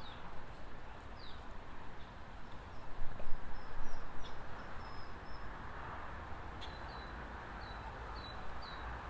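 Birds chirping in short, repeated high calls over a steady background hiss, with some louder irregular noise a few seconds in.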